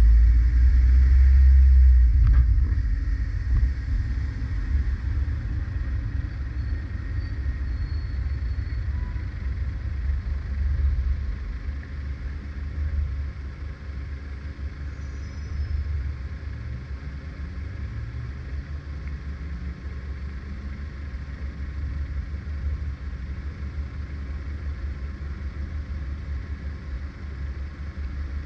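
Low rumble of a car in city traffic, loudest in the first few seconds while it is moving, then quieter and steadier once it sits stopped at the lights. Midway an engine note rises in pitch a few times.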